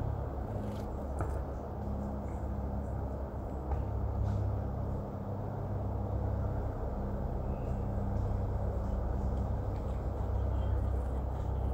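Steady low outdoor rumble with a faint low hum, with a few faint short ticks early on and near the middle.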